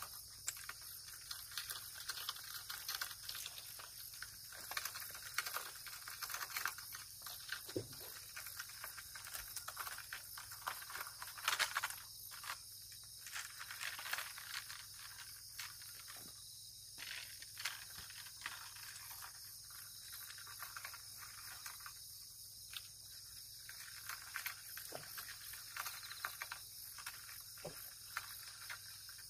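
A steady high-pitched insect chorus, with scattered clicks and rattles from a fishing rod and spinning reel being handled. The loudest run of clicks comes near the middle.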